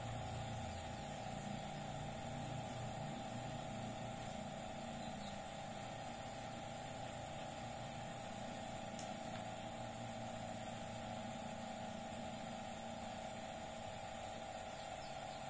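A steady mechanical hum with a constant tone, and a single faint click about nine seconds in.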